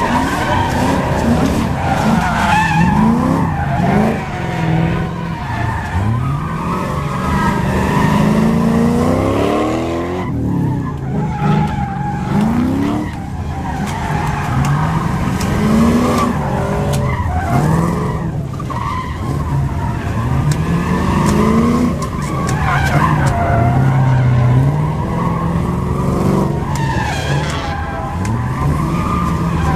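Nissan Silvia drift car's engine revving hard and dropping back over and over, its pitch rising and falling every couple of seconds, as the car slides through a cone course with tyres squealing and skidding.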